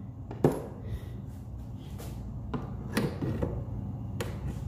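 Metal pry tool prying nails out of a fireplace mantel: several sharp knocks and clicks of metal on the mantel, the loudest about half a second in, over a steady low hum.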